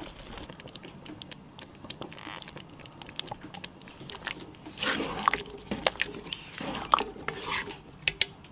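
Wooden spoon stirring yogurt into a thick bean stew in a cast-iron Dutch oven: wet squelching and swishing with scattered short clicks. It gets louder about five seconds in.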